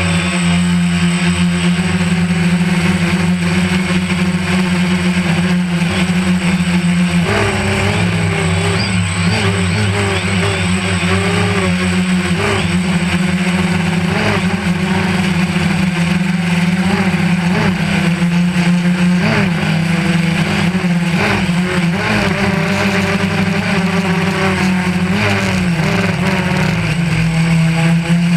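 DJI Phantom 1 quadcopter's motors and propellers humming loudly, steady at first, then the pitch wavering up and down from about a quarter of the way in as the motors keep changing speed in strong wind.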